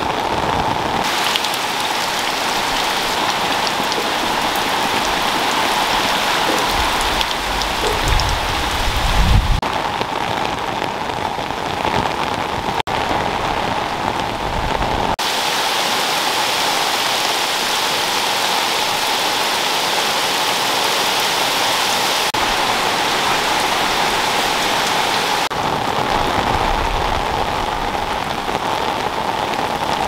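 Heavy rain pouring steadily, its tone changing abruptly several times. A brief low rumble comes about eight or nine seconds in.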